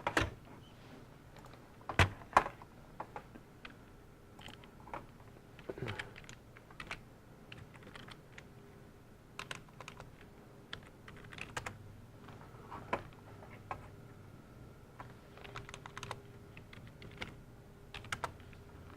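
Computer keyboard and mouse being worked in short, irregular clicks and taps, loudest about two seconds in.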